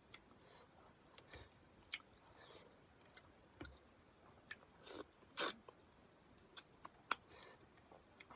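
Faint, scattered wet clicks and smacks of eating by hand: chewing, and fingers picking through fish in curry sauce. The sharpest clicks come about five and a half and seven seconds in.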